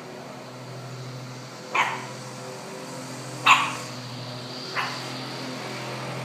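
A Pomeranian puppy barks three short times, about a second and a half apart, the middle bark the loudest, at the sound of a lawn mower. Under the barks the mower's engine runs with a steady hum.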